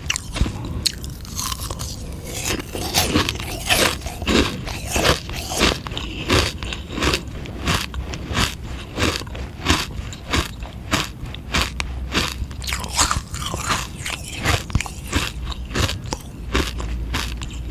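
Biting and chewing a frozen sugar-water ice lolly close to the microphone: a steady run of sharp, brittle crunches, a few a second.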